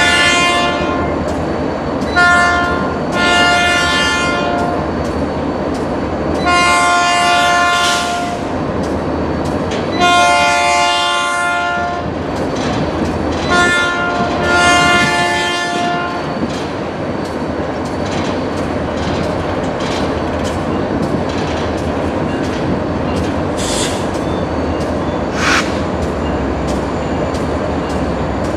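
Diesel freight locomotive sounding its air horn in a series of blasts over the first sixteen seconds: two short, then three long. After that the locomotive's engine and the train's wheels rumble steadily past.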